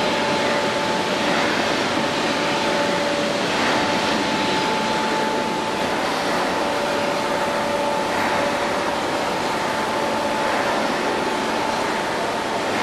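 Electric overhead travelling crane running with a large suspended casting: a steady mechanical rush with two steady whining tones that drop out briefly now and then.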